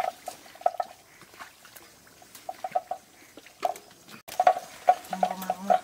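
Hands splashing and scooping in shallow muddy water, with runs of short, same-pitched chirping calls from an animal repeating throughout.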